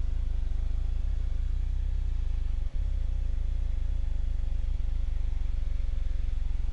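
Steady low drone of a light aircraft's piston engine and propeller heard from inside the cockpit during formation flight, with one brief dip in level about a third of the way in.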